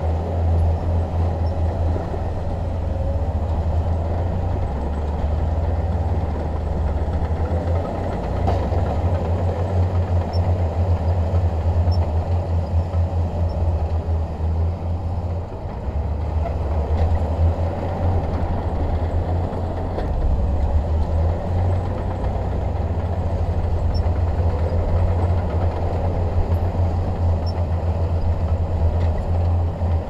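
Heavy diesel earthmoving machinery running steadily under load, a low engine drone with a rougher rumble above it that wavers slightly but never stops.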